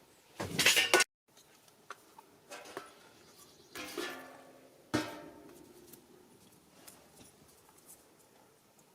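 Hard objects being handled and set down: a short loud clatter near the start that cuts off suddenly, then a few knocks and clinks with brief metallic ringing, the sharpest knock about five seconds in.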